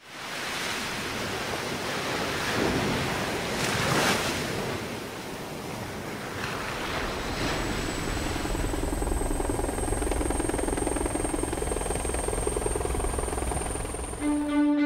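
Rushing, wind-like whooshing noise that swells twice a few seconds in, then gives way to a low droning rumble under a thin high whine that slowly rises. Violin music comes in at the very end.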